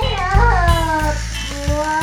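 Background music with a steady, pulsing bass beat under a sliding, wavering melody line.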